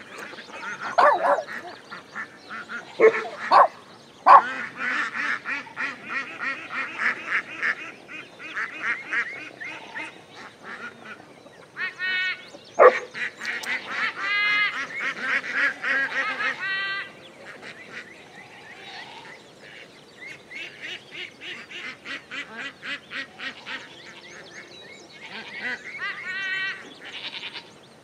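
A flock of domestic ducks quacking, with long runs of quick repeated quacks and a few louder single calls. It goes quieter for several seconds in the second half, then picks up again near the end.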